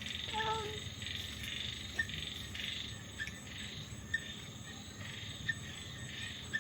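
A short, low cat cry about half a second in, over a steady pulsing background chorus of calling frogs and insects with a few faint ticks.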